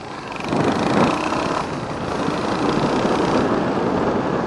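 Royal Enfield Hunter 350's single-cylinder engine pulling the motorcycle along on the road, getting louder about half a second in and then running steadily, heard from the rider's position with wind noise on the microphone.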